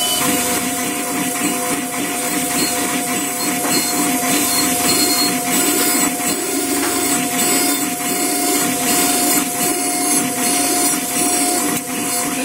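Dental milling machine grinding a zirconia block into a crown under a spray of coolant water: a steady grinding noise with a constant whine.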